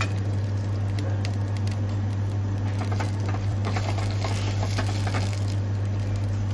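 Clams, garlic and olive oil sizzling in a stainless steel sauté pan over a gas burner, a dense patter of small pops and spits just after their cooking juice has gone in. A steady low hum runs underneath.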